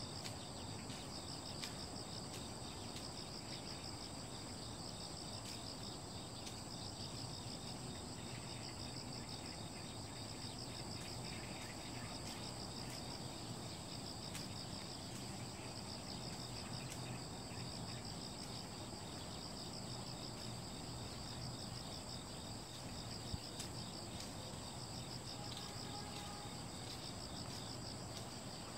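Insects chirring steadily and high, with scattered sharp knocks and taps at irregular intervals, the loudest about 23 seconds in: a pole beating a jujube tree to knock the ripe jujubes down.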